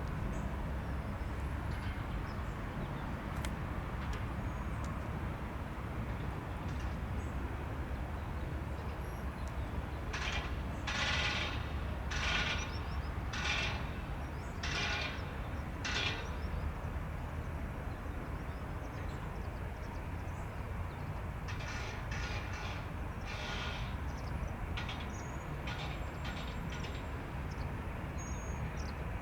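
Steady low rumble with two runs of short harsh bird calls: five or six about ten seconds in and four more a little past the twenty-second mark.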